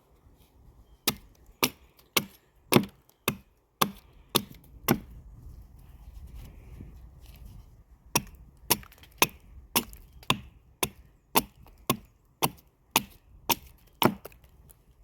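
Gränsfors Bruks Carpenter's Axe hewing a wooden spoon blank: sharp, even chops of the blade into wood, about two a second, with a pause of a few seconds in the middle.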